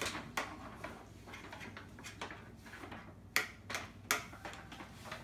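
Scattered light clicks and knocks, the sharpest two a little after three seconds and about four seconds in.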